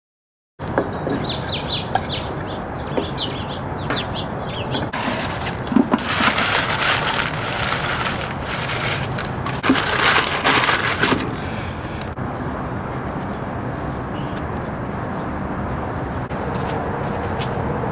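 Bird calls over a steady outdoor background, with several loud bursts of rustling or handling noise in the middle.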